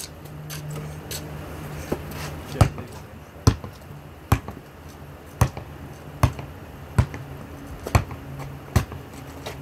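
A basketball being dribbled: a steady run of single bounces, a little more than one a second, starting about two seconds in.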